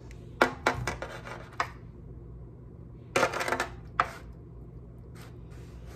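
Disposable aluminium foil pan crinkling and clicking in a few short clusters as a hand and knife work garlic into slits in a raw corned beef brisket, over a low steady hum.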